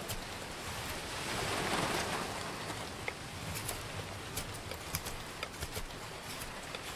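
A Schrade SCHF42D fixed-blade knife carving spalted wood in short strokes, small sharp clicks and scrapes of the blade taking shavings, over a steady hiss of wind and rain. About a second and a half in, a louder rush of noise lasts about a second.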